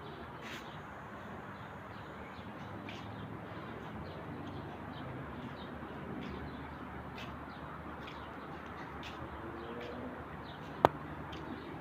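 Birds calling over a steady background hum, with short high chirps throughout and a few low cooing-type calls. A single sharp click sounds near the end.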